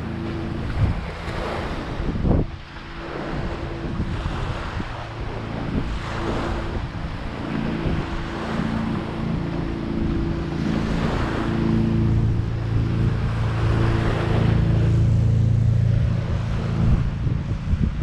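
Waves washing onto a beach, swelling and ebbing every few seconds, with wind buffeting the microphone. A steady engine hum builds from about seven seconds in and is loudest near the end.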